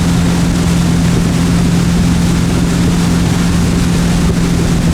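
Motorboat engine running steadily at towing speed: a constant low drone with an even rush of wind and water over it.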